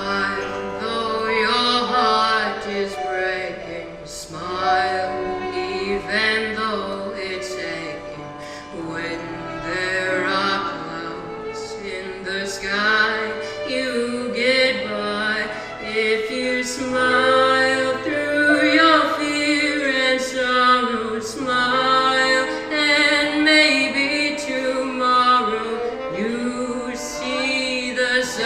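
A 12-year-old boy singing a solo song over instrumental accompaniment, his voice gliding between long held notes above steady bass notes.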